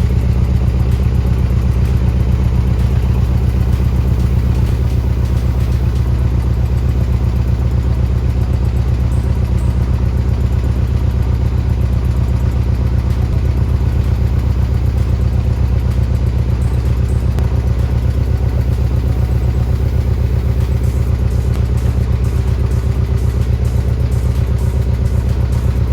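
Porsche 718 Boxster's 2.0-litre turbocharged flat-four engine idling steadily, a loud even low note with a fine regular pulse.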